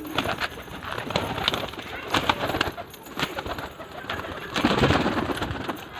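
Domestic pigeons cooing, with a fuller stretch of cooing near the end, among scattered light clicks.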